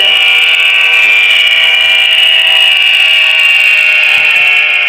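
HO-scale model diesel locomotive running up to the crossing. It gives a loud, steady, high buzzing whine with many overtones that sinks slightly in pitch.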